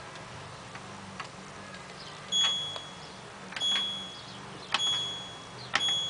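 LG F1222TD washing machine control panel beeping as its option buttons are pressed: four short high beeps about a second apart, each starting with a button click.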